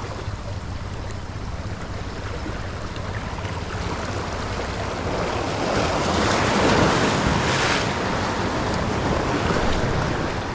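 Sea waves washing onto the shore, one wave swelling up about halfway through and then easing back, with wind rumbling on the microphone.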